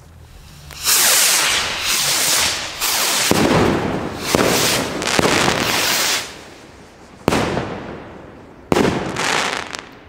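A volley of fireworks rockets launching from a cake, their whooshing hisses overlapping for about five seconds. Two more single launches start abruptly and fade near the end.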